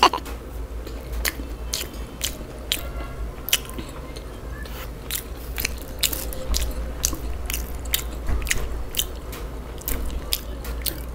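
Close-miked chewing of a KFC Zinger fried-chicken burger with its crispy breaded fillet: irregular crisp crunches, a few each second, as the mouthful is worked.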